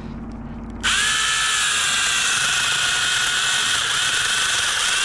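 Gardtech 6-inch mini chainsaw running: a low hum, then about a second in the motor and chain come up to a loud, steady high whine, the pitch sagging slightly near the end.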